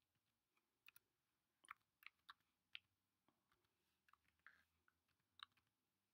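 Faint computer keyboard typing as an IP address is keyed in: about a dozen separate key clicks at uneven intervals.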